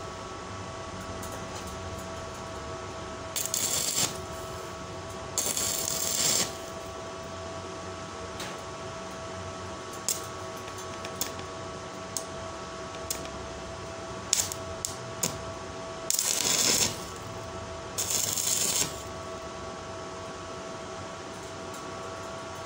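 Stick arc welding steel strips of a hexagonal paving-block mould: four short tack welds, each about a second of crackling, sizzling arc, two in the first seven seconds and two more after about sixteen seconds. Scattered light metallic ticks and a steady high whine run underneath.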